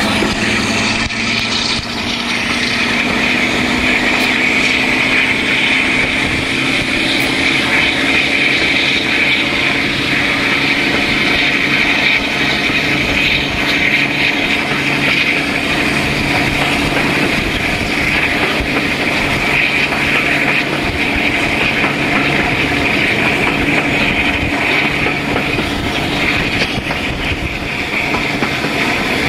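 Class 52 'Western' diesel-hydraulic locomotive D1013 working hard under load, its twin Maybach engines heard from an open coach window behind it, along with rushing wind and the running of the train. The engine note rises slowly in pitch over the first ten seconds or so, then holds steady.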